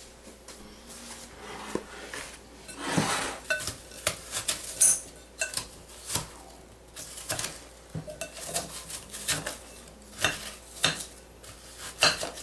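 A metal knife clinking and scraping against a glass mixing bowl as apple slices are cut and stirred: irregular clinks and taps, with a longer scrape about three seconds in.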